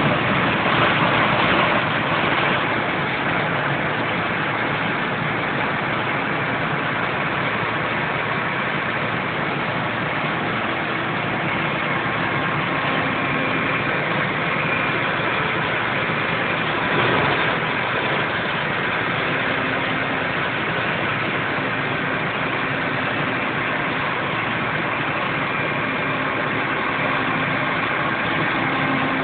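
Don-1500B combine harvester's diesel engine running steadily.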